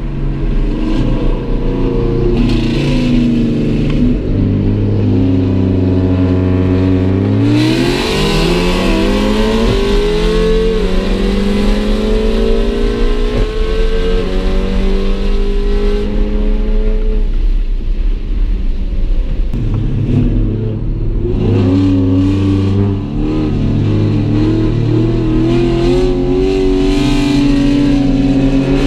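Car engine heard from inside the cabin under hard acceleration. It holds a steady pitch, then climbs in a long rising pull about a third of the way in, and climbs again in the later part.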